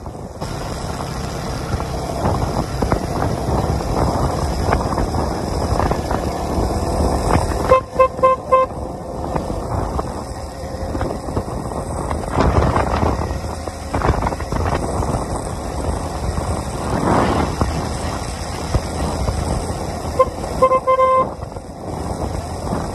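Yamaha R15 V3 motorcycle riding along a highway, with engine noise and wind rushing over the microphone as it gains speed. A horn beeps in several short bursts about eight seconds in and again near the end.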